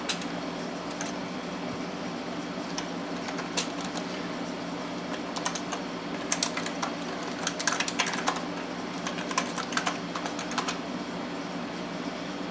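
Typing on a computer keyboard: irregular runs of key clicks, grouped in short bursts with pauses between, over the steady hum of the running PC.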